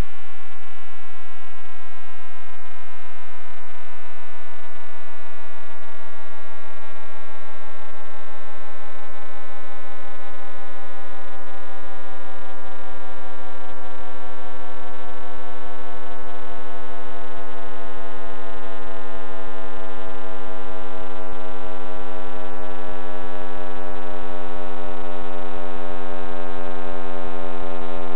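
Synthetic drone of many stacked tones, all gliding slowly and steadily downward in pitch. It is a sonification of the Big Bang made from cosmic microwave background data.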